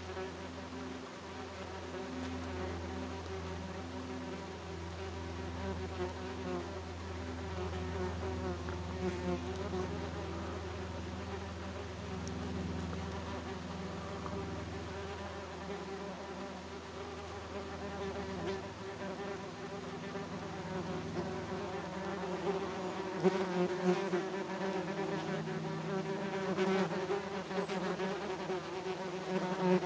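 Wasps buzzing close by, several wing hums overlapping and wavering in pitch. It grows louder and busier over the last several seconds as a wasp flies in low near the end.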